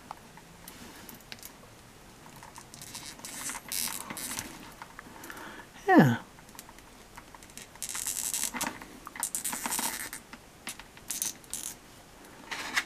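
Fingers handling and fitting small plastic accessory parts onto a plastic action figure: scattered light scraping, rustling and clicking of plastic. About halfway through comes one short, loud squeak that falls steeply in pitch.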